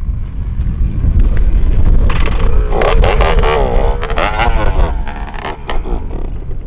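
Kawasaki 60 cc two-stroke motocross bike being push-started. From about two seconds in, the rolling wheel turns the engine over and it sputters and pops for a few seconds without catching, which the owners put down to a clogged fuel line after years of standing. Heavy wind noise on the microphone throughout.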